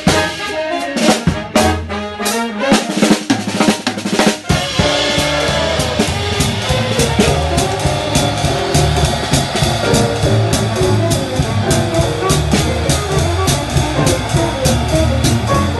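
Big band jazz played live: the drum kit plays a break of snare, bass drum and cymbal hits for about four seconds. Then the full band comes back in, saxophones, trumpets and trombones over double bass, with a steady cymbal beat.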